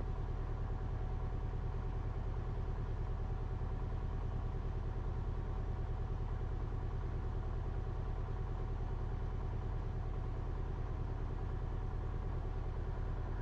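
Cessna 172RG's Lycoming O-360 four-cylinder engine and propeller idling steadily.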